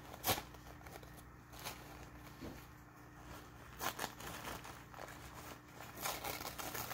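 A paper tissue being crumpled and torn by hand: scattered soft crinkles, a sharp click about a third of a second in, and denser crinkling near the end.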